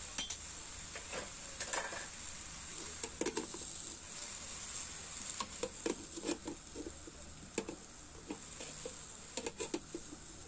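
Water spinach frying in a wok, a steady hiss, while a metal dome lid is set on the wok and handled, giving scattered light knocks and clatters.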